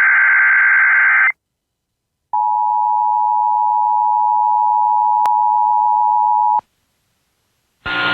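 The tail of an Emergency Alert System SAME data burst, a buzzy electronic screech, stops about a second in. After a second of silence the EAS two-tone attention signal sounds steadily for about four seconds and cuts off, announcing a tornado watch. A louder, noisy sound starts just before the end.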